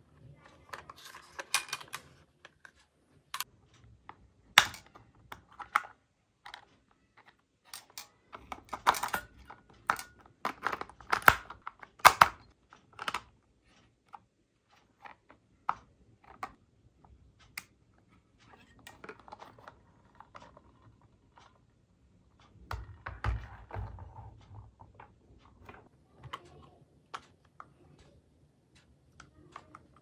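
Hard plastic toy car bodies being handled, turned over and set down on a table: irregular clicks, taps and knocks of plastic, most of them in a cluster a third of the way in.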